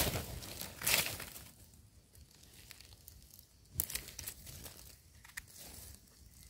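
Dry leaf litter and soil rustling and crackling as a gloved hand digs around and pulls wild mushrooms from the ground. Loudest in the first second, then fainter, with a few sharp crackles.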